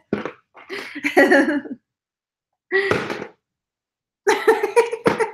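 A woman's voice in four short bursts with silent pauses between them, but no clear words.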